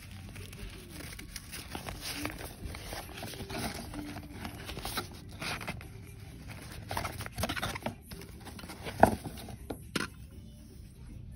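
Rustling and scraping of a tripod's nylon carry bag being handled and pulled open over its box, with two sharp knocks near the end, the first the loudest.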